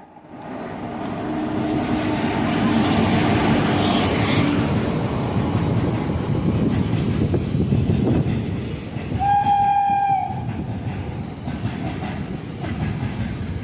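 Express train passing close by at speed: the rumble and clatter of wheels on rails builds over the first couple of seconds and stays loud. One horn blast of about a second sounds about two-thirds of the way through.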